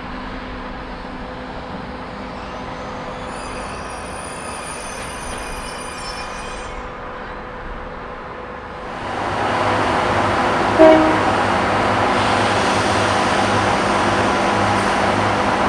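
A KiwiRail EF-class electric locomotive and its train: a steady low hum at first, then about nine seconds in the train draws close and passes with loud, steady rolling noise on the rails. There is one short, loud blip soon after it arrives.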